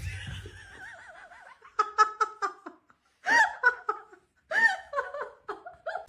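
A person laughing in short bursts: a quick run of ha-ha pulses, then a few higher rising-and-falling giggles with pauses between.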